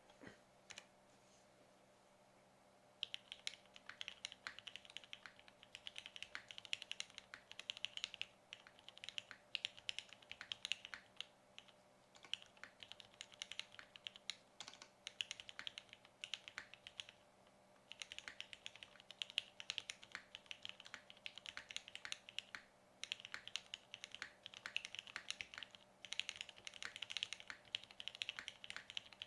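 Typing on a KFE OG R1 custom mechanical keyboard fitted with broken-in, lubed and filmed Cherry MX Black Hyperglide linear switches on a polycarbonate plate, with tape mod, no sound dampening and GMK keycaps. Rapid, continuous keystrokes start about three seconds in and run in long streaks broken by a few brief pauses.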